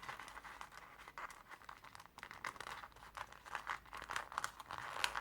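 Folded sheets of colored origami paper rustling and crinkling in small, irregular crackles as the folded units are handled and tucked into one another.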